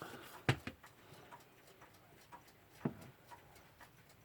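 Small metallic clicks and taps of tools and parts on a clock movement as the top plate is worked loose: two sharper clicks about two and a half seconds apart, with fainter ticks between.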